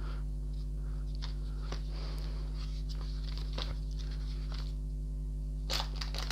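Pages of a paper LEGO instruction booklet being flicked and turned by hand: a string of short, sharp rustles, the strongest near the end. A steady low hum runs underneath.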